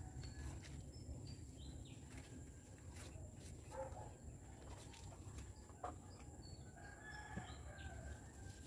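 Faint bird calls, scattered short chirps and calls at several pitches, over a low steady rumble, with a couple of brief clicks.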